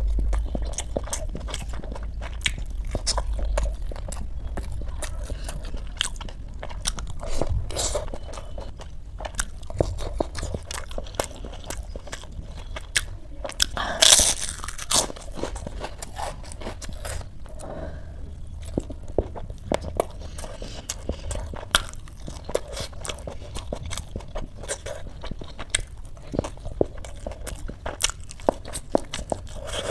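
Close-miked eating: crisp bites into fried food and wet chewing, with many small crunches and mouth clicks and one loud crunch about halfway through.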